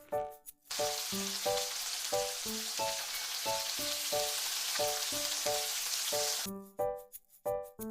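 Food frying in hot oil, a steady sizzle that starts a little under a second in and cuts off abruptly near the end. Light plucked background music plays throughout.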